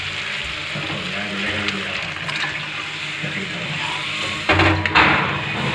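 Liquid poured into hot spiced tadka oil in a steel kadhai, hissing and bubbling up as a steel ladle stirs it, with two sharper louder bursts about four and a half seconds in.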